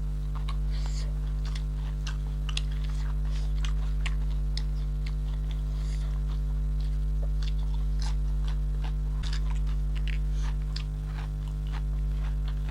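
Close-up chewing and biting: scattered small wet clicks and crunches of someone eating, over a steady low electrical hum.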